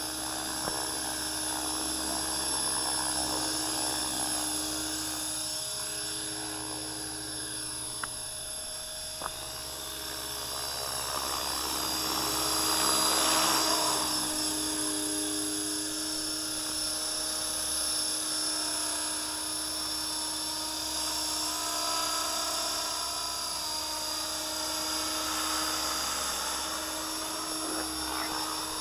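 Align T-Rex 500 electric RC helicopter in flight: the high whine of its motor and drivetrain over the hum of the rotor. The pitch shifts up and down as throttle and blade load change, and it is loudest around the middle.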